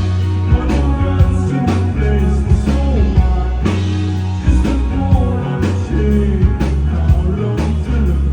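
Live rock band playing a slow song: drums, bass and guitar, with a singer's voice over them.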